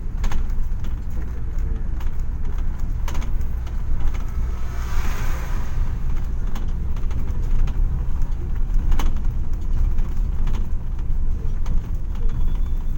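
Steady low rumble of a moving vehicle heard from inside its cabin, engine and road noise, with a few sharp rattles. A hiss swells and fades about five seconds in.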